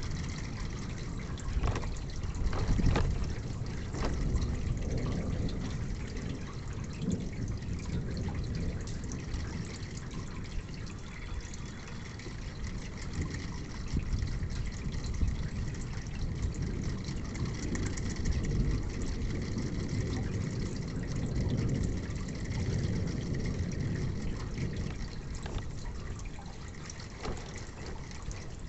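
Rain falling with water running and dripping, a steady wash of noise. A few sharper splashes or knocks come in the first few seconds.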